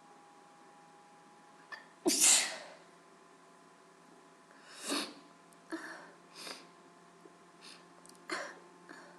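A woman's wet allergy sneezes: one loud sneeze about two seconds in, then a run of smaller, quicker sneezes.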